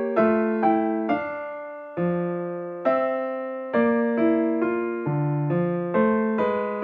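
Background piano music: single notes and chords struck about twice a second, each dying away before the next.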